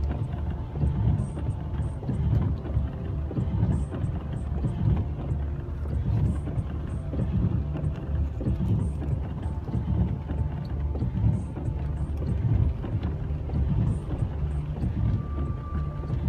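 A vehicle's low, uneven rumble.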